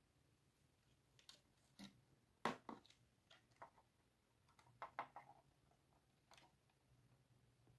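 Hard plastic parts of a toy dollhouse clicking and knocking as it is handled: a scatter of short, sharp clicks, the loudest about two and a half seconds in and a small cluster around five seconds.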